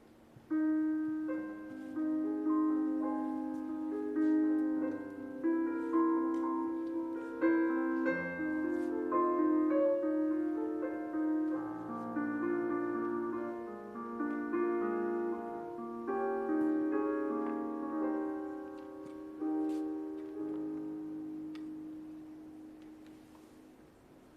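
Slow, gentle piano music, notes struck and left to ring, starting about half a second in and fading away near the end.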